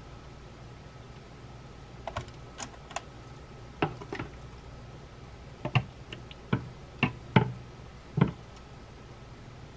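Wooden chopsticks clicking and tapping against bowls as battered chicken pieces are picked up, dipped and laid in the air fryer basket: about ten light, irregular clicks, starting about two seconds in, with a faint steady hum underneath.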